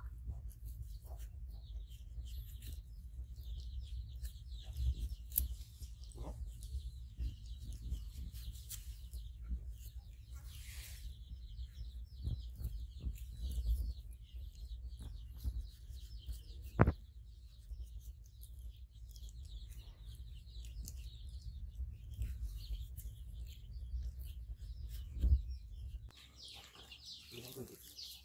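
Birds chirping in the background over a steady low rumble, with one sharp click a little past halfway; the rumble drops away near the end.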